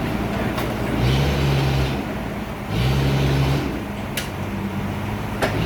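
Heavy sawmill machinery running with a steady low hum, its engine note swelling into louder surges twice, each lasting about a second, with a few sharp clicks in between.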